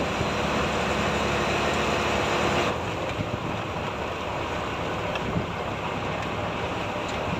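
Fishing boat's engine running steadily under way at sea, mixed with wind on the microphone and rushing water. About a third of the way in, the sound turns a little quieter and duller.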